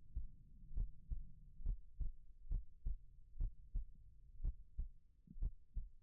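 Slow, steady heartbeat, each beat a soft low double thump (lub-dub) at about one beat a second, over a faint low hum.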